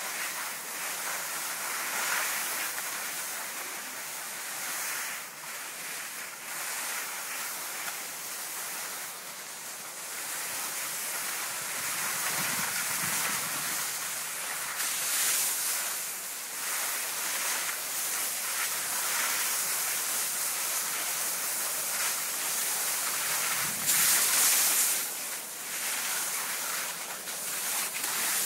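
Skis hissing and scraping over snow during a downhill run, with wind rushing over the microphone. The rushing noise swells louder several times, loudest near the end.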